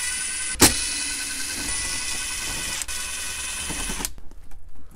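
Ridgid 18V cordless drill spinning steadily as it backs out the 7 mm screws holding a factory radio, with a sharp click just after the start; the motor stops about four seconds in.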